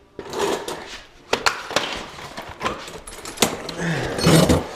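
Handling noise as someone moves under a car: a run of sharp, irregular knocks and clicks with rustling between them, and a brief low voice-like sound near the end.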